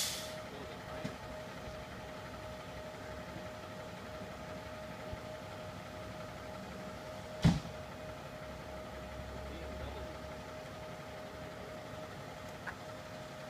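Fire truck idling: a steady engine hum with a constant mid-pitched tone over it, and one sharp knock about halfway through.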